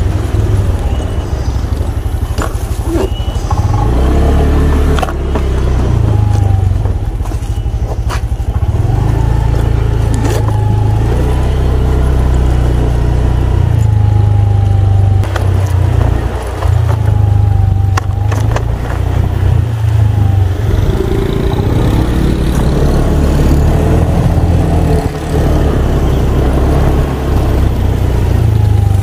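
Motorcycle engine running on the move, its pitch rising and falling again and again with the throttle, over a steady low rumble and a few sharp knocks.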